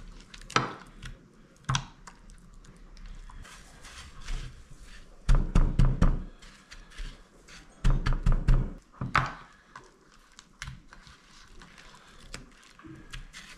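Hands patting and pressing a mozzarella brick into panko breadcrumbs in a glass baking dish. There are scattered single knocks, then two runs of quick dull thunks about a second long each, a few seconds apart.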